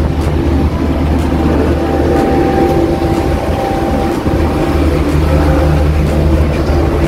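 Steady low engine rumble on a ferry's vehicle deck, with a thin steady whine above it.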